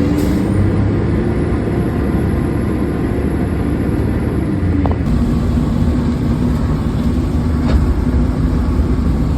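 Fire engine running steadily as it drives, a low rumble with an even engine hum, with a couple of faint clicks.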